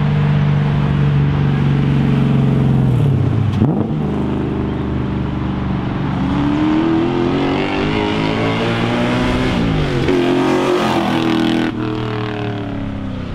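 V8 drift truck's Lexus 1UZ-FE VVT-i V8 being driven hard: the engine note holds steady, dips and climbs again about three and a half seconds in, then rises steadily as it accelerates, and falls back near the end.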